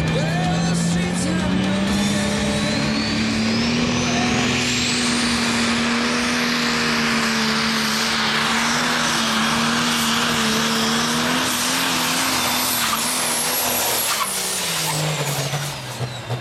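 Pro Stock pulling tractor's turbocharged diesel engine running at full power hauling the weight sled: a steady drone with a turbo whine that climbs to a high pitch over the first few seconds and holds. Near the end the engine note and the whine both drop as the tractor comes off the throttle.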